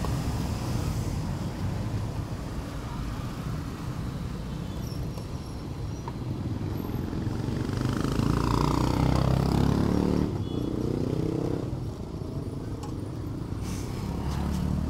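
Steady rumble of street traffic, with a motor vehicle's engine swelling up and passing, the loudest part, from about seven to eleven seconds in.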